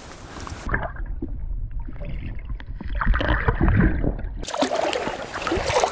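Muffled underwater water noise with low rumbling and thuds as a large fish struggles in a gill net, heard through an underwater camera. About four and a half seconds in, the sound opens up to water splashing at the surface as the net is worked.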